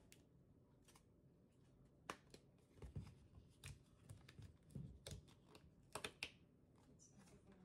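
Printed wrapper of a MOW ice cream cup being torn open and peeled off by hand: quiet, irregular crinkling and tearing crackles, with a couple of sharper cracks about six seconds in.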